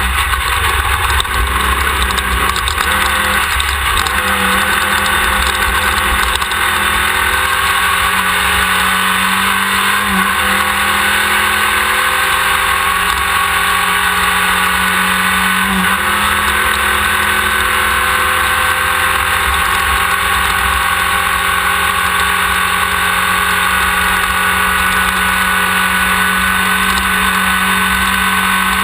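A Class 1600 desert race buggy's air-cooled Volkswagen engine running hard at high, fairly steady revs, heard from the rear of the car. Its pitch climbs slowly and then holds, over a constant loud rush of wind and driving noise.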